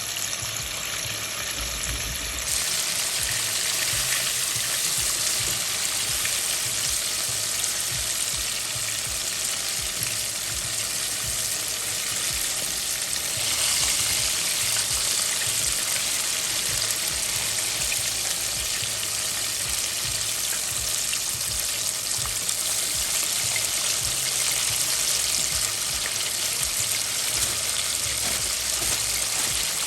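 Flour-and-cornstarch-coated chicken pieces deep-frying in hot oil in a pot: a steady, loud sizzle that steps up in loudness a couple of seconds in and again about halfway.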